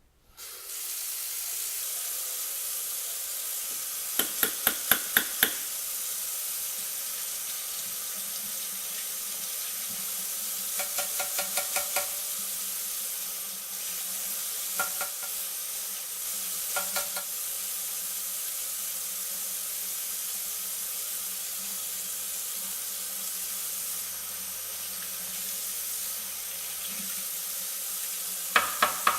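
Tap water running steadily, rinsing a Dyson V7/V8 HEPA filter. Several times the water is broken by a quick run of sharp taps, five or six in a row.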